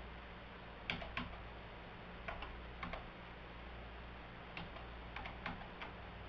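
Computer keyboard keys tapped in short, scattered clusters, about a dozen faint clicks in all.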